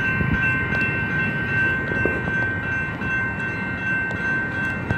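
Railroad grade crossing warning bell ringing steadily, over a continuous low rumble.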